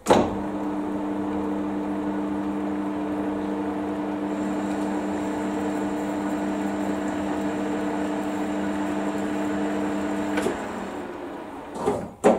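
Metal lathe running with a steady hum of several tones, its spindle reversed to back the single-point threading tool out of the thread. It runs down and stops about ten seconds in, followed by a couple of sharp clunks near the end.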